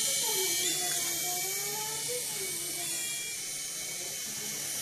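Small electric motors and rotors of a toy RC helicopter whirring steadily, with a faint pitch that drifts up and down.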